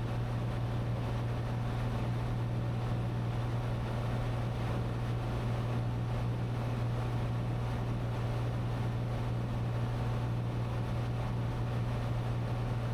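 Cessna 182T's Lycoming IO-540 engine and propeller droning steadily in cruise, heard inside the cabin as a constant low hum with airflow noise.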